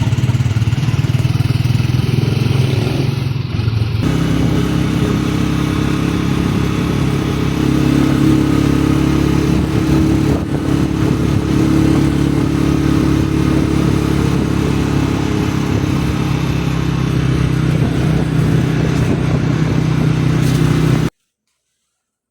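A motorcycle engine running steadily at a fairly even pitch, with a sudden change in its sound about four seconds in. It cuts off abruptly near the end.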